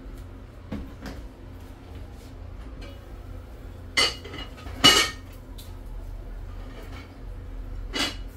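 Metal cooking pots and lids clanking on a gas stove: a couple of small knocks about a second in, then sharp clanks about four and five seconds in, the second the loudest, and another near the end, over a steady low hum.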